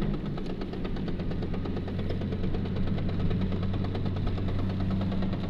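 VAZ-2110 drivetrain knocking while driving at speed, heard from inside the cabin: a fast, even knock over a steady drone. It comes with road speed and load and is absent at idle; someone the owner consulted attributes it to a broken tooth on the differential's planetary gear.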